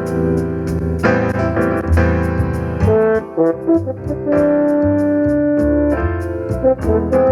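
Soundbeam 6 electronic music: a backing track with a steady beat, bass line and piano-like keyboard chords, with brass-like notes played over it and held for a while from about four seconds in.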